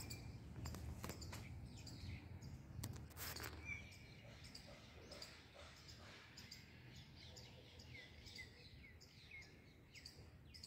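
Faint birds chirping outdoors: a run of short, quick chirps repeating through the second half, over low background rumble.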